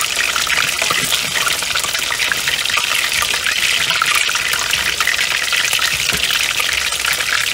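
Battered cod fillets frying in hot oil in a cast iron skillet: a steady, dense sizzle with fine crackling from the bubbling oil.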